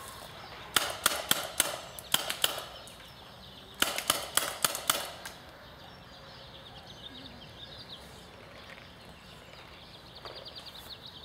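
Paintball markers firing two quick volleys of sharp pops, about seven shots, then after a short gap about six more.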